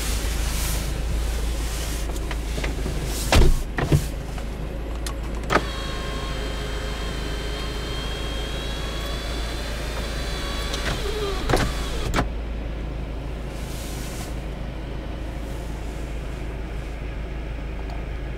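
Mini Cooper S power window motor whining steadily for about five seconds, starting and stopping with a click, over a steady low hum. A few loud knocks come before and after the whine.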